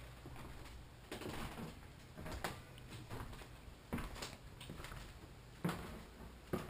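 Footsteps on a hardwood floor: about five soft knocks spaced a second or so apart.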